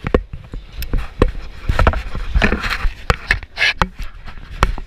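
Irregular knocks and rubbing scrapes of gloves and a jacket sleeve against a body-worn action camera, with skis and poles scraping on packed snow while shuffling forward.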